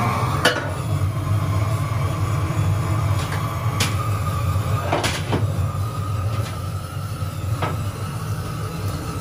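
Long-handled propane torch burning steadily as its flame is held into a wood stove's firebox to light the wood. A few sharp knocks or clicks come through it.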